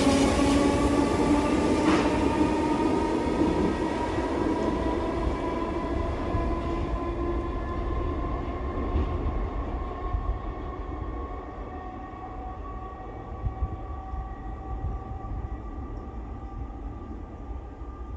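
Merseyrail electric multiple unit pulling away into the tunnel. Its traction motors give a whine of several tones that climb steadily in pitch as it gathers speed. The sound fades over about ten seconds, leaving a low rumble in the underground station.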